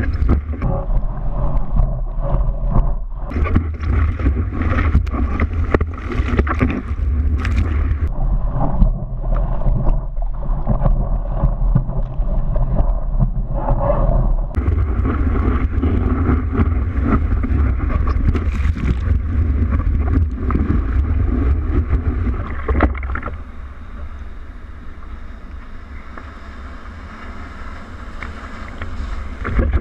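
Water sloshing and rushing with splashes and buffeting on the microphone, the kind heard from a camera on a boat or in the surf. About 23 seconds in it drops to a quieter, steadier hiss.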